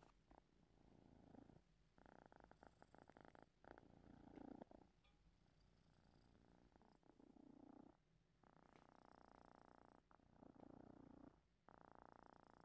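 Domestic cat purring, faint and close, in pulsing stretches of a second or two with short breaks between them.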